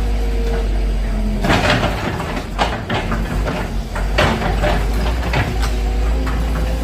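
Excavator engine running with a steady low rumble, under repeated knocks and crunches as the excavator breaks up a house.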